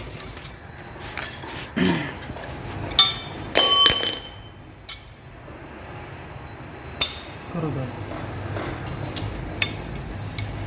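Metal hand tools clinking and knocking: a socket wrench and loose sockets striking against each other and the car's suspension as a new rear shock absorber's bolts are fitted. A few sharp metallic strikes with a brief ringing after them, clustered about three to four seconds in, and another knock about seven seconds in.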